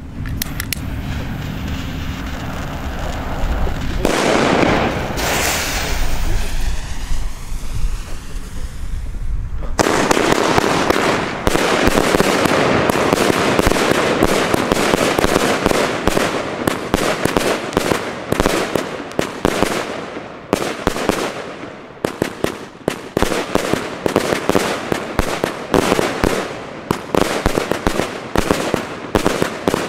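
A 100-shot 25 mm firework cake firing in a fast run of launch thumps and bursting shells with crackle, starting about ten seconds in and continuing without a break. Before that there is a rumbling noise with a hiss around four to six seconds in.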